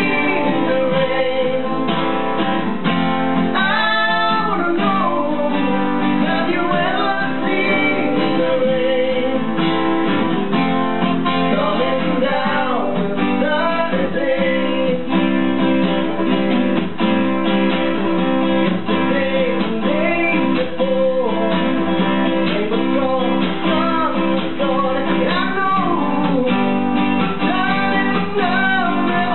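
Two acoustic guitars played together live, a flowing mix of strummed and plucked notes carrying a melody.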